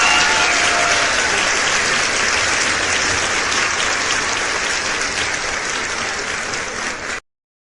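Applause, a dense even crackle that cuts off abruptly near the end.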